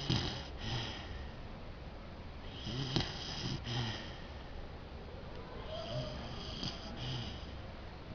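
Basset hound snoring in deep sleep, three snores about three seconds apart, each in two short bursts.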